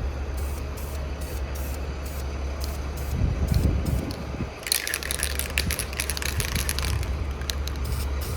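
Aerosol spray paint can (Krylon Industrial Tough Color) spraying a hissing burst of about two seconds, starting near the middle. Under it runs a steady low rumble.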